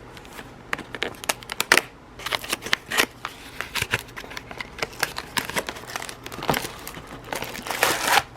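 Packaging crinkling and rustling, with irregular small clicks and taps, as a paint-by-numbers kit is taken out of its box and unpacked.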